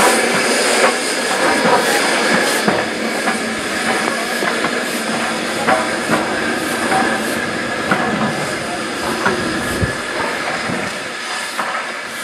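GNR N2 class 0-6-2T steam tank locomotive moving slowly off, hissing steam, with scattered clanks and clicks from its wheels and motion on the track. The sound fades gradually as it draws away.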